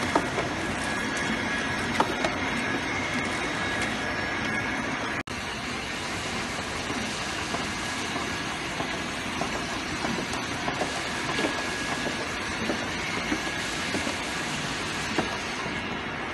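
An ultrasonic facial tissue box sealing machine and its conveyor run steadily, with scattered small clicks as boxes move through. The sound breaks off for an instant about five seconds in.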